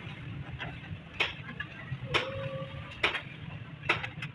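Sharp metallic knocks, about once a second, during work on a tractor's side brake; the knock about two seconds in leaves a short ringing tone. A low steady hum runs underneath.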